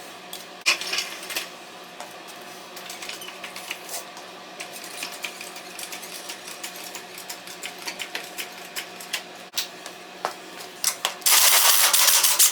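Scattered light clicks and clinks of metal tools being worked on a motorcycle's rear wheel, with a loud burst of noise lasting about a second near the end.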